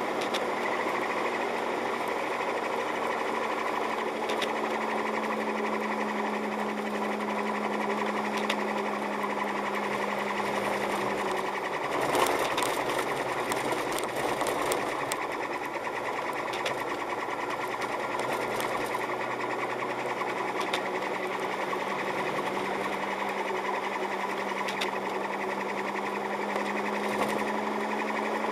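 Car interior noise while driving on a snow-covered road: a steady engine hum with a fast mechanical rattle and scattered small ticks over a broad road noise. The hum drops away for several seconds around the middle, then returns.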